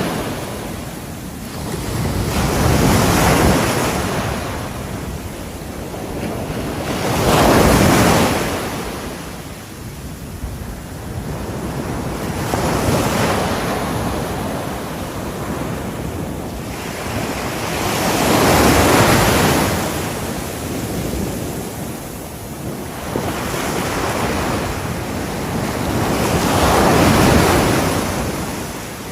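Ocean waves breaking on a shore, the wash swelling and fading in about five surges, one every five to eight seconds.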